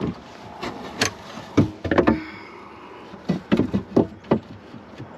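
Wooden perch board knocking and scraping against the coop's wooden frame as it is set into place: a few separate sharp knocks, then a quicker cluster of them about three to four and a half seconds in.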